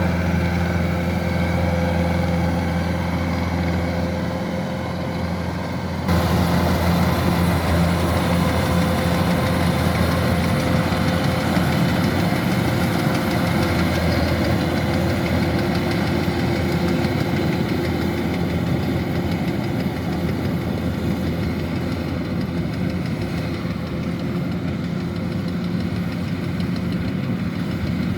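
Kubota DC-105X combine harvester running steadily with a continuous engine hum and machinery noise. The sound steps abruptly louder and rougher about six seconds in.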